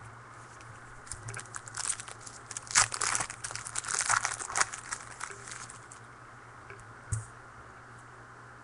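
Trading cards and their packaging being handled at close range: a few seconds of crinkling and rustling, then a single light knock about seven seconds in.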